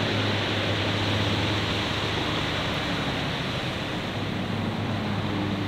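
Outboard motor of a small fishing boat running across the lake: a steady low hum under an even rushing noise, with faint higher tones of the motor joining about two seconds in.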